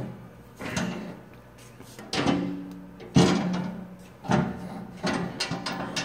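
About six sharp metal clunks and knocks, a second or so apart, some ringing briefly before dying away, from handling the Crown PW 3520-80 walkie power jack.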